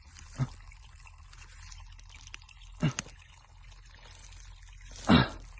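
Three short, dull knocks about two and a half seconds apart over a faint steady hiss. The last knock is the loudest.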